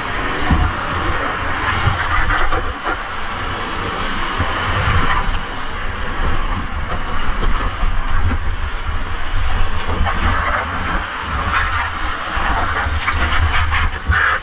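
Steady rush of whitewater in a rain-fed mountain stream, with heavy low rumbling on the microphone.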